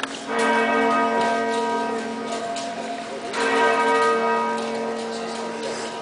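York Minster's church bells ringing: two strong strokes about three seconds apart, each ringing on and slowly fading.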